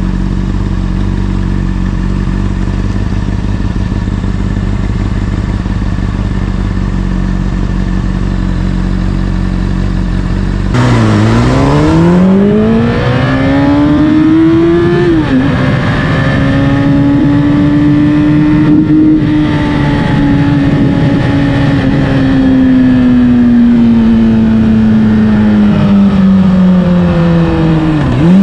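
Honda CBR600RR inline-four with an Akrapovic exhaust idling steadily, then pulling away about eleven seconds in. It revs up through first gear, drops pitch at an upshift around the middle, holds a steady cruise, then slowly eases off.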